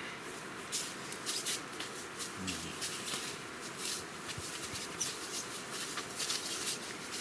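Rustling and scuffing as dogs shift about and are petted on a nylon tent groundsheet: an irregular run of short scratchy rustles.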